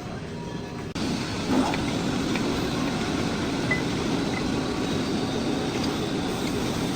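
Steady mechanical running noise of a metal lathe at work. About a second in it changes abruptly to a louder, denser noise that then holds steady.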